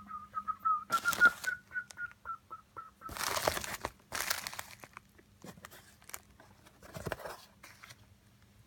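Plastic shipping mailer crinkling and rustling as it is handled, in several bursts, with a cardboard box being moved. A high pulsing tone, about four beeps a second, stops about three seconds in.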